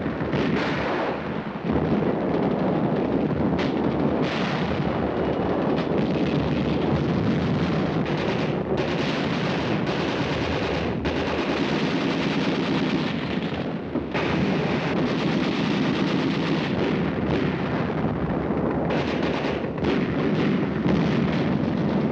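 Continuous battle sound of gunfire and shellfire, dense and almost unbroken, on an old 1940s film soundtrack.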